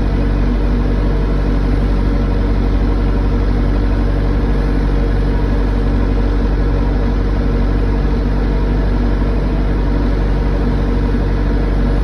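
Backhoe diesel engine running steadily while the machine pushes snow with its front bucket; a constant low drone that holds the same pitch throughout.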